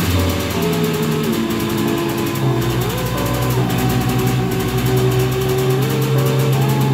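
Simson moped's small two-stroke engine running on barbecue lighter fluid instead of petrol, kept going with the choke pulled and the throttle held open, its pitch stepping up and down a few times.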